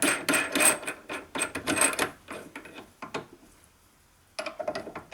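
Clicking, scraping and knocking of metal parts being handled and set up at a pillar drill, dense for the first two seconds, then sparser, a short pause, and another quick run of clicks near the end; the drill motor is not running.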